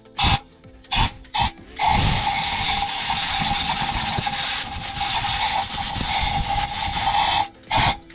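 Compressed-air blow gun blasting into the engine's spark plug wells to clear out loose debris. There are a few short blasts, then one long blast of about five seconds with a steady whistling tone, which cuts off near the end.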